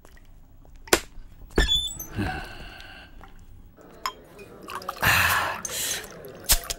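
Glassware clinking a couple of times, then liquid poured into a glass for about a second, some five seconds in.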